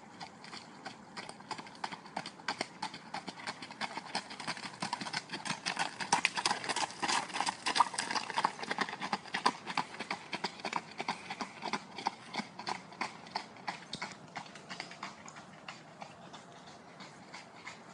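Horses' hooves clip-clopping on a gravel track in a quick, even rhythm. The hoofbeats are loudest in the middle and grow fainter near the end.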